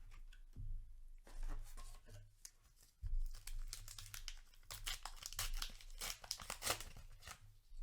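A paper trading-card booster wrapper being torn open and crumpled: a run of rustling tears, busiest in the second half.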